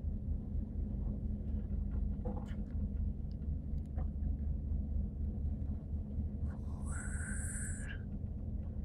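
Steady low rumble with a faint hum aboard a ship in heavy seas, as waves break over the deck. About seven seconds in, a brief higher-pitched sound lasts just over a second.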